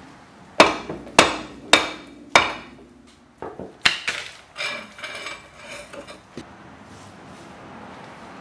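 A 3-pound hammer strikes the back of a rust-seized steel brake rotor four times, about half a second apart, each blow ringing metallically. The rotor is still stuck on the hub. A few lighter knocks and one more blow follow, then a scraping, ringing rattle as the rotor is turned by hand.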